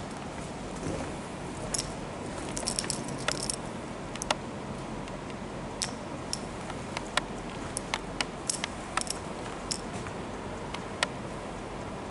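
Steady hiss with scattered light clicks and a short run of brief metallic jingles about two and a half to three and a half seconds in.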